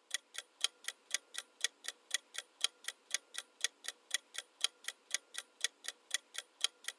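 Countdown timer sound effect: a clock ticking steadily at about four ticks a second.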